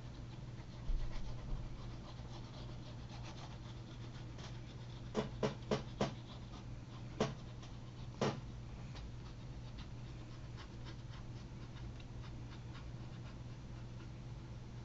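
Quiet tabletop handling of a paper card frame while glue is run along its inside edge: a soft knock about a second in, then a quick run of sharp clicks around five to six seconds in and two single clicks a little later, over a steady low hum.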